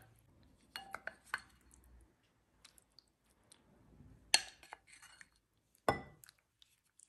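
A wooden spoon knocking and clinking against a glass bowl while stew is scooped and spooned out: a few sharp knocks, the loudest about four and six seconds in.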